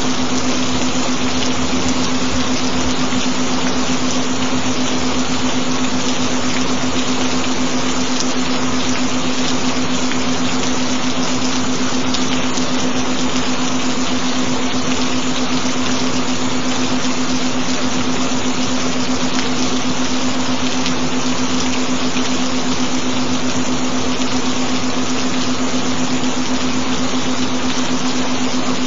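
Recorded rain, an even and steady hiss of falling rain. Underneath it a constant low tone is held without change, the binaural-beat tone of the track.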